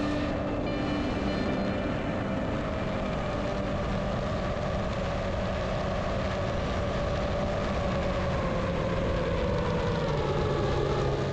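FPV drone's motors and propellers whirring in flight, mixed with wind rush, as heard from the drone itself; several steady tones drift slowly in pitch.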